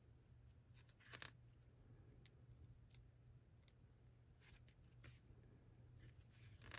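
Near silence with faint rustles and soft clicks of hand-sewing: a needle and thread being drawn through thick plaid fabric. A slightly louder rustle comes about a second in and another just before the end, over a faint steady low hum.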